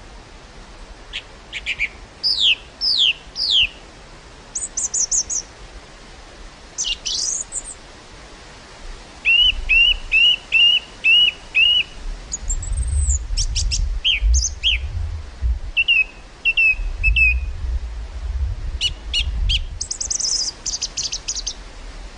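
Several small songbirds singing and calling: varied chirps, quick trills and downward-sliding whistles come in scattered phrases throughout. A breeze hisses steadily underneath, and wind rumbles on the microphone in gusts about halfway through and again a few seconds later.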